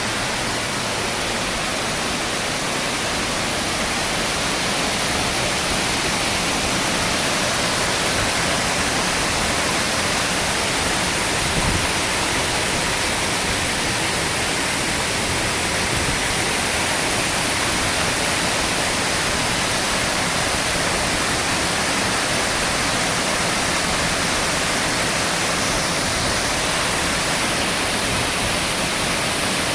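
Waterfall pouring steadily: an even, unbroken rushing hiss of falling water.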